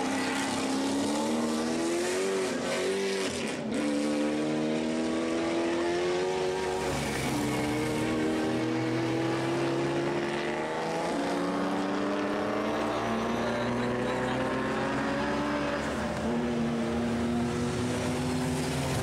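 Classic racing car engines accelerating hard out of a slow corner. Their pitch climbs through each gear and falls back at every upshift, over and over.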